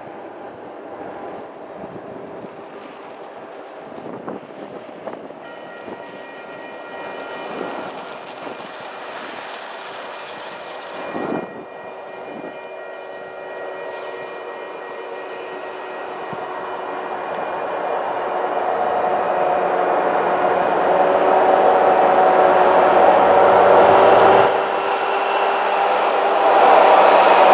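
Union Pacific diesel freight locomotives approaching and drawing level, their steady engine drone with several held tones growing steadily louder until the lead units are close near the end.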